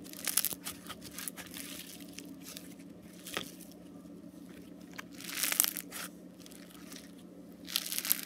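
Crinkly, crackling handling noises from a plastic slime container and the foam slime in it, over a faint steady hum. There are louder bursts about a third of a second in, around five and a half seconds, and near the end.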